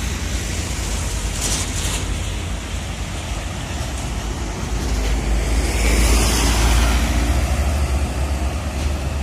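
Road traffic at a busy junction: a steady heavy engine rumble with tyre hiss, swelling about five to seven seconds in as a large vehicle, a bus, passes close.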